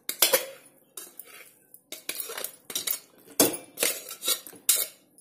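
Cooked rice tipped from a metal container into a metal cooking pot, with metal knocking and scraping against metal as the rice is knocked out: a run of irregular clinks and clatters.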